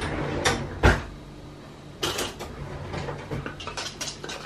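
A metal spoon and a plastic pot of homemade caramel being handled, clinking and knocking. There is one loud knock just under a second in, then a run of light clicks and rattles in the second half.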